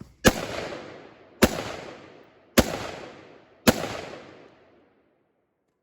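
Four gunshots fired about a second apart in a steady rhythm, each followed by an echo that rolls away over about a second.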